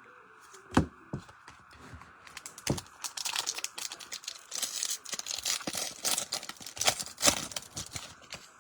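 Trading cards being handled and a foil card-pack wrapper crinkling. There are scattered clicks at first, then a dense run of crinkling and quick clicks through the middle.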